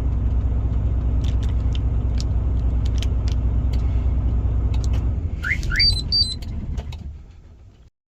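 Volvo FM truck's diesel engine idling steadily. About five seconds in it fades away, while a remote-start alarm unit gives two quick rising chirps followed by a few short high beeps.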